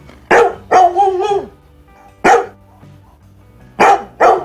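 Sound-effect recording of a Labrador dog barking, played back from a sound library: a quick run of three or four barks, a single bark about two seconds in, then two more near the end.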